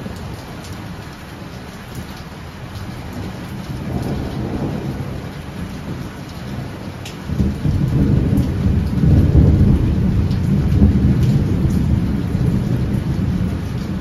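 Heavy rain pouring steadily with rolling thunder: a low rumble swells about four seconds in, then a louder peal breaks in suddenly about seven seconds in and rumbles on for several seconds, slowly fading.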